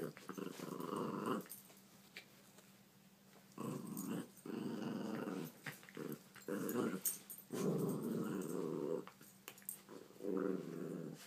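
Puppies growling while they play-fight, in a series of rough growls lasting about a second each with short pauses between.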